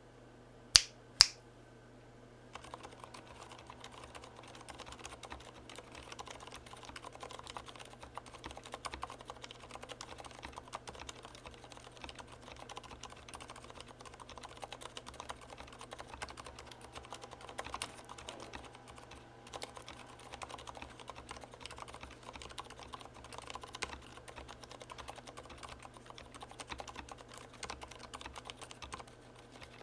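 Leopold FC750R mechanical keyboard with lubed silent red linear switches being typed on steadily, a dense run of soft keystrokes. Two sharp, louder clicks come about a second in, just before the typing starts.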